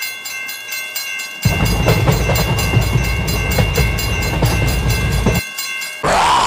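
Cartoon train sound effect: a steady horn tone over fast, regular wheel clacking. About a second and a half in, the heavy rumble of a passing train joins it and then cuts off sharply about four seconds later.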